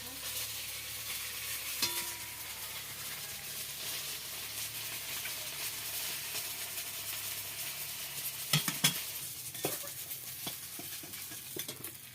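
Rohu fish pieces sizzling as they fry in hot oil in a pan, a steady crackling hiss. A few sharp clinks of a utensil against the pan come about two seconds in and again around nine seconds.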